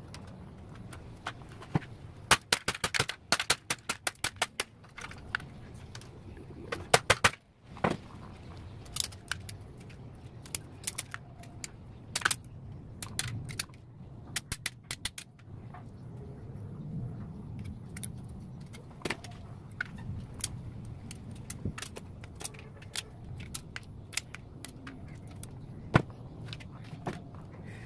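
Sharp clicks and clatter of small hard parts being handled, coming in quick clusters about two to five seconds in and again around seven seconds, then scattered single clicks, over a low steady hum.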